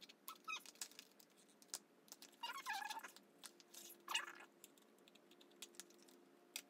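Scissors snipping and prying at a small plastic makeup package, with faint clicks and crinkling; a louder crinkly scrape comes about two and a half seconds in, and another about four seconds in.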